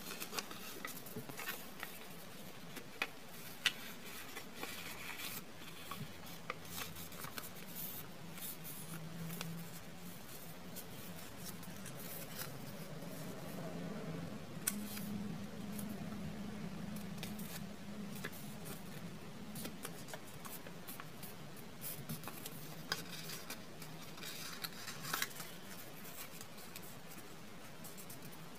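Origami paper being folded and creased by hand: soft rustling and crinkling with scattered sharp little clicks as creases are pressed down.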